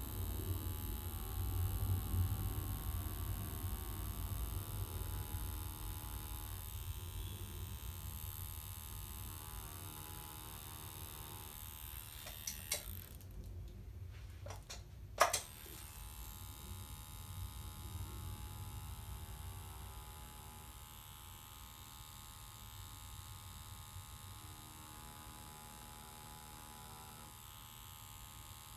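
Electric tattoo machine running with a steady buzz while lining on practice skin. About halfway through it goes silent for about two seconds, with sharp clicks as it stops and starts, then runs on.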